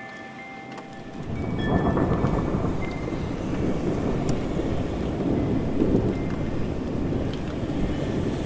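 Thunder rolling, a deep rumble that swells about a second in and keeps going, over steady rain.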